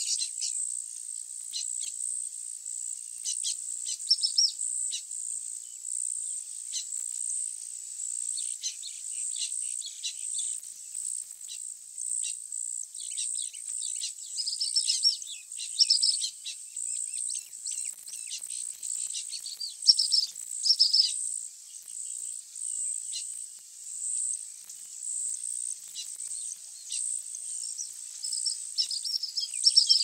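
Baya weavers chattering in repeated bursts of high, scratchy chirps, over a steady high-pitched insect buzz that pulses evenly.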